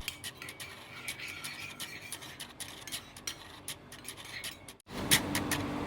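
Light clicks and scraping of kitchen utensils against a dish. About five seconds in it cuts off, and a louder, fuller background with a low hum takes over.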